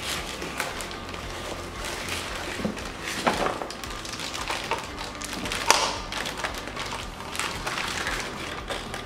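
Plastic wrapping crinkling and rustling as a boxed single-burner gas stove is handled and lifted out of its cardboard carton, with a few light knocks. A sharp crackle comes about three seconds in and the loudest one just before six seconds, over background music.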